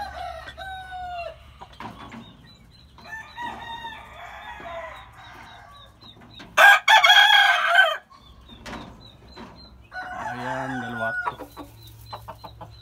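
Roosters clucking and calling, with one loud crow of about a second and a half halfway through.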